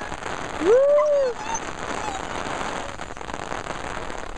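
Steady rain falling, an even patter of drops, with a person calling out a rising-and-falling "woo!" about a second in.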